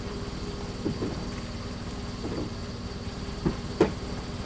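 A boat's engine idling steadily, with a few short knocks; the loudest comes near the end.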